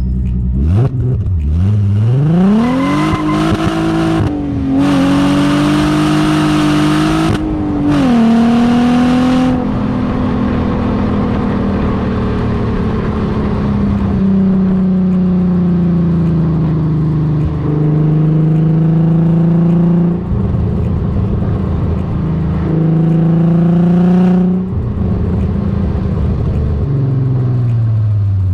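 Exhaust note of a Corrado's swapped-in 3.6 VR6 engine (BLV) with a custom exhaust and Magnaflow muffler, under hard acceleration. The pitch climbs steeply and breaks at two upshifts, with a loud rushing hiss over the hardest pulls. It then cruises with the pitch slowly sinking, rises again briefly under throttle, and falls away as the throttle is lifted near the end.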